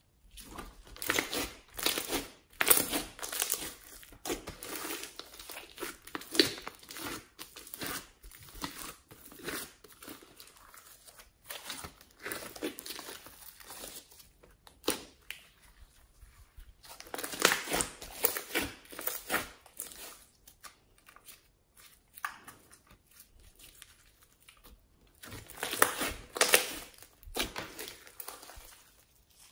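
Hands stretching, pulling and pressing a large lump of homemade slime mixed with glitter and small beads, giving irregular bursts of sticky noise made of many small clicks and pops, with short quieter pauses between handfuls.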